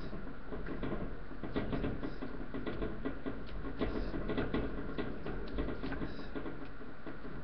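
Boston terrier puppies scuffling on a newspaper-lined floor, with irregular rustling and scratching of paper and light pattering of small paws.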